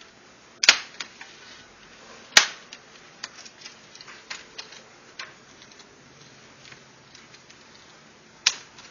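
Plastic screen bezel of a laptop being pried off with a small flat screwdriver: its clips snap loose with three loud, sharp cracks, two in the first few seconds and one near the end, with lighter clicks and ticks of tool and plastic in between.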